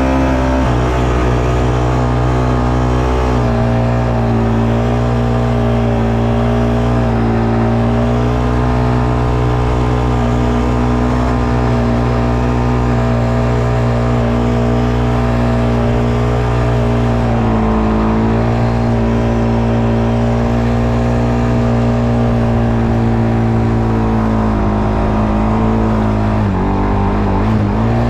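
ATV engine running at a fairly steady speed, its pitch dipping briefly and recovering a few times as the throttle eases and opens.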